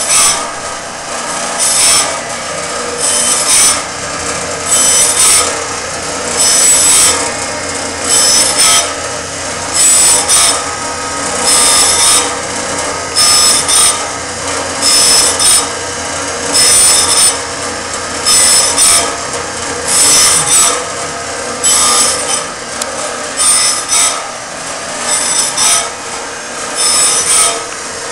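Automatic band saw sharpener dry-grinding a bandsaw blade tooth by tooth: a rasping grind comes a little more than a second apart as the wheel meets each tooth, over the steady whir of the machine's motor.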